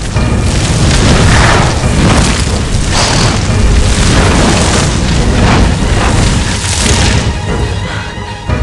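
Film sound effects of a blazing ring of fire: a continuous deep rumble with several loud whooshing surges of flame.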